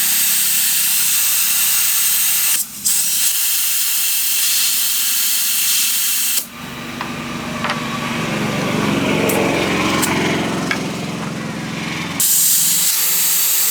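Compressed air hissing loudly from an air line, stopping and restarting abruptly. It breaks off briefly after a couple of seconds, gives way to a lower, rougher rushing sound for about six seconds midway, then the sharp hiss starts again near the end.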